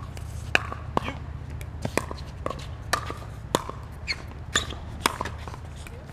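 Plastic pickleball struck by paddles and bouncing on a hard court during a rally: a run of sharp, hollow pops, about two a second.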